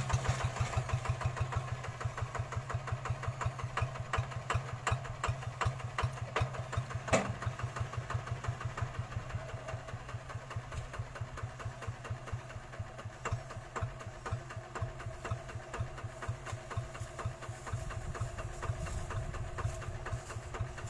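Single-cylinder diesel engine of a two-wheel hand tractor running steadily with an even, rapid beat as the tractor works through paddy mud. There is one sharp knock about seven seconds in.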